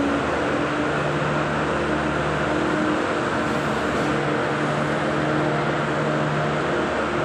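Ice resurfacing machine running as it drives across the rink: a steady hum that fades in and out every second or two over constant noise.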